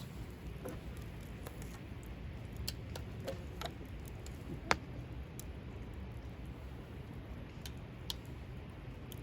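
Scattered light clicks and ticks, one sharper than the rest about halfway through, over a low steady background rumble.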